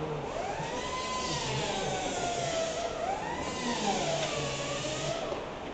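A siren wailing in the distance, its pitch rising and falling slowly, over a low hum.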